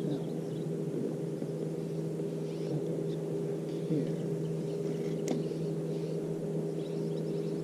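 Steady hum of a small boat motor: a few even tones held without change, with a single sharp click a little past five seconds in.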